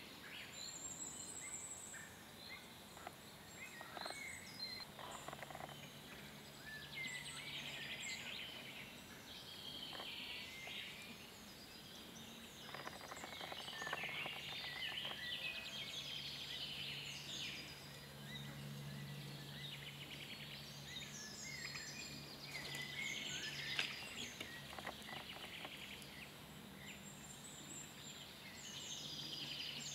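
Woodland birdsong: several birds singing overlapping chirps and trills, over a faint steady low hum.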